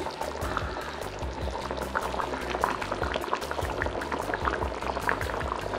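Thick fish curry boiling in a pan on medium heat, bubbling with many small pops.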